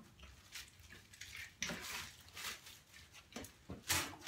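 Scattered light knocks and clinks of objects being handled, with a louder knock near the end.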